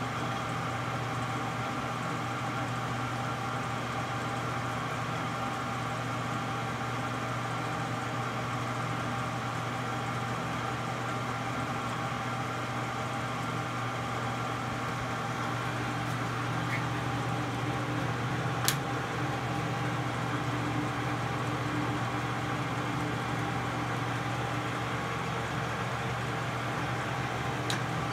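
LeBlond Regal 15 x 30 engine lathe running under power with its spindle empty and no cut being made: a steady hum with several steady tones over it. A sharp click comes about two-thirds of the way through, and another near the end.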